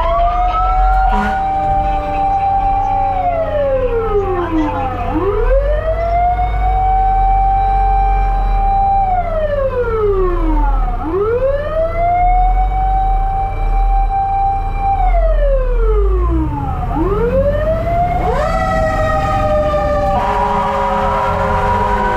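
Fire engine's wail siren, heard from inside the cab. It rises quickly, holds, then falls slowly, cycling about every six seconds over the truck's engine rumble. Near the end a second, steady siren-like tone joins it.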